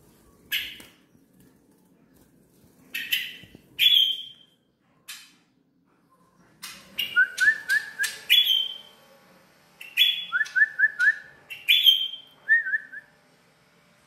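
Caged ciblek songbird calling: loud, sharp single calls, then busy clusters of calls that include short runs of quick rising notes about seven and ten seconds in.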